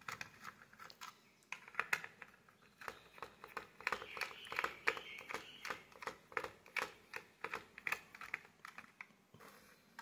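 Screwdriver turning a small screw in the plastic chassis of a toy remote-control car: quick irregular small clicks and scrapes, several a second, with a brief squeak about four seconds in.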